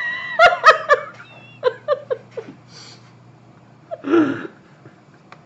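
Laughter: a few loud bursts of laughing, then a run of shorter chuckles that die away, and one more short burst about four seconds in.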